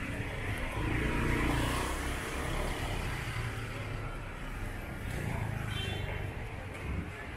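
Street traffic passing close by: cars and motor vehicles running, a steady low engine rumble with road noise.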